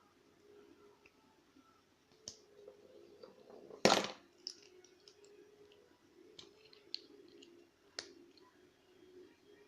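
Small metal clicks and scrapes of hand tools working on a Euro cylinder lock, taking the cylinder apart at its retaining clip, with one much louder sharp clatter about four seconds in and another distinct click near the end.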